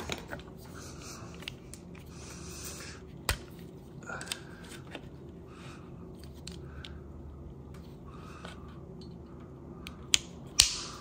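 A Shimano hydraulic brake hose insert tool, plastic and metal, being handled and repositioned on the brake hose: scattered sharp clicks and knocks, with two loud snaps near the end.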